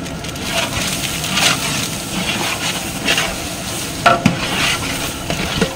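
A spoon or ladle stirring and scraping chilli powder and turmeric through onions frying in oil in a pot, with the oil sizzling; a short ringing knock of the spoon against the pot about four seconds in.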